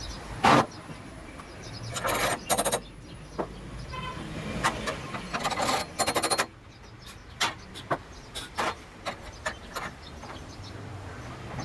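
Irregular clicks and knocks with two short rasping bursts, about two seconds in and again near the middle, over a low background hum.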